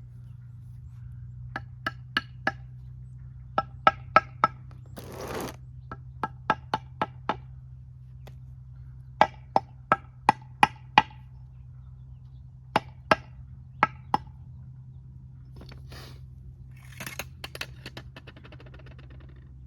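Steel mason's trowel tapping a freshly laid cinder block down into its mortar bed: sharp ringing taps in quick groups of four to six, with a couple of short scrapes of mortar between, over a steady low hum.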